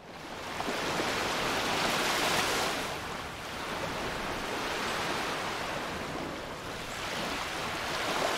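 Ocean surf breaking on a beach: a steady rush of waves that swells and eases about every three seconds.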